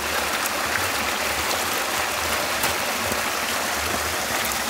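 Running water making a steady splashing rush with small faint clicks.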